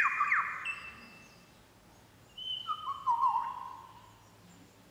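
Male superb lyrebird mimicking a camera shutter: two short bursts of the imitation, one at the start and another about two and a half seconds in. Each has a quick falling glide and a held high whistle-like note. Played back from a nature documentary through a lecture hall's loudspeakers.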